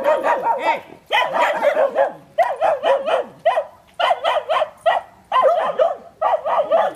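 Dog barking in rapid, high-pitched yaps, several a second, in runs of about a second with short pauses between them.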